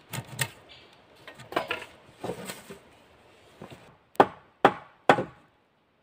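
Wooden poles knocking and clattering, then three sharp strikes on wood about half a second apart, the last of them cut off abruptly.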